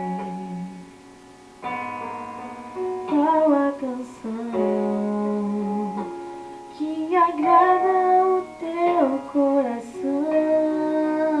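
Introduction of a gospel worship song: long held instrumental chords with a woman's voice singing wordless, wavering melodic runs over them.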